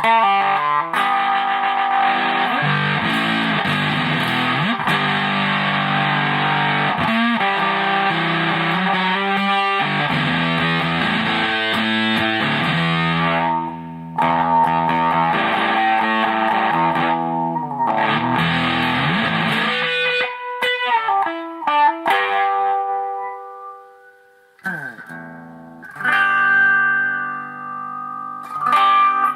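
Electric guitar on its bridge humbucker played through a Graphic Fuzz pedal (a clone of the Earth Sound Research design) into a Fender Hot Rod Deluxe amp, picked up by a camera's built-in mic. Thick fuzzed chords are held for long stretches, then thin out to sparser single notes and fade almost away about three-quarters of the way in before the playing comes back.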